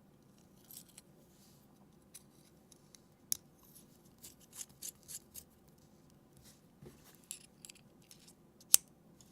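Faint small clicks and scrapes of a metal pen being handled and unscrewed to take out its ball-pen refill, with one sharper click near the end.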